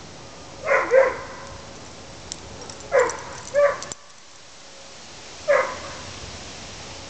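A dog barking in short single barks: a quick pair about a second in, two more around three seconds, and one last bark about five and a half seconds in.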